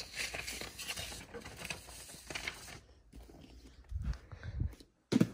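Rustling and handling noise from a phone being moved about by hand, then a few soft low thumps about four seconds in.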